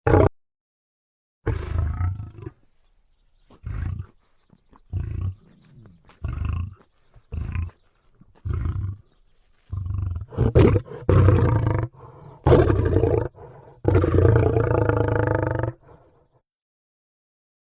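Griffon sound effect made of lion-like roars and growls: a string of short growls with pauses between them, building to longer, fuller roars from about ten seconds in, which stop a little before the end.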